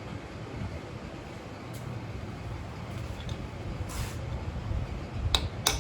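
A steady low hum, with two sharp metallic taps near the end: a hammer striking a punch to work out the upper half of the old, rock-hard rear main seal of a Jeep 4.0L engine.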